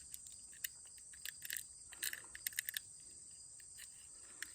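Steady, high-pitched chorus of insects such as crickets, with a scatter of short, sharp clicks or chirps in the first three seconds.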